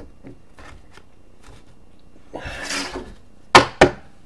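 Trading-card packaging being handled: a short rustle, then two sharp knocks about a third of a second apart near the end.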